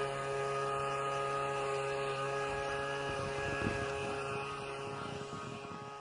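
LEGO pinball machine running with a steady motor hum, with a few faint knocks about three seconds in; it fades slightly at the end.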